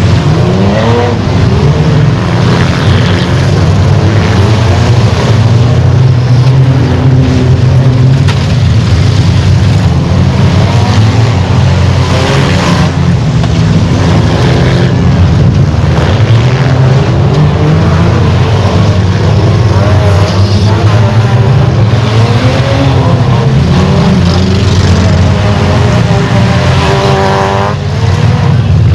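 A pack of enduro race cars running laps, several engines revving up and falling back as they pass, loud throughout.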